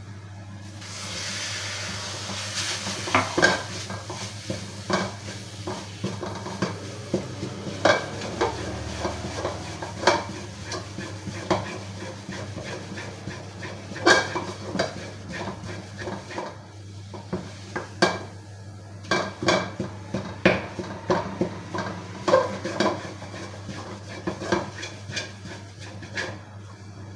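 Wooden spatula stirring, scraping and knocking irregularly against an aluminium kadhai full of a cooking coconut barfi mixture. About a second in a hiss rises as liquid food colour goes into the hot pan.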